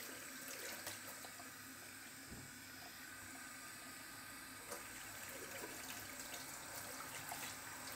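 Cold water from a kitchen tap running steadily and faintly into a stainless steel sink, splashing as pieces of fish are rinsed under the stream.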